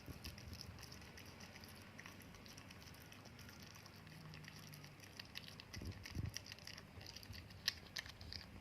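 A cat eating: faint, irregular small clicks and smacks of chewing and licking, with a couple of soft low thumps about six seconds in.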